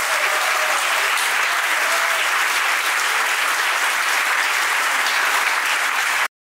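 Audience applauding steadily; it cuts off abruptly near the end.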